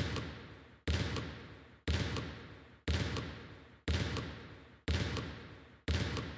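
A basketball bounced steadily on a hard court, about once a second, each bounce echoing and fading out before the next.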